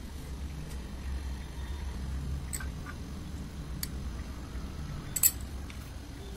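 A steel spoon clinks sharply once against a small glass bowl about five seconds in, after a few lighter clicks, over a steady low hum.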